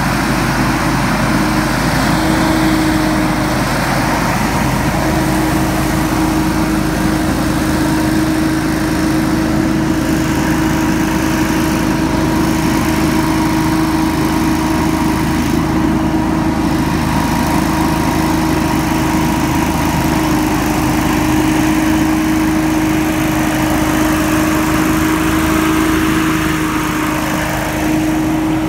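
Hurricane X3 stand-on leaf blower running steadily as it blows leaves, its engine and fan making a constant loud drone with a steady whining tone.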